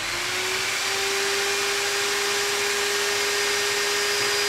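A motor running steadily, a whine over a hissing rush, its pitch rising slightly just after the start and then holding level.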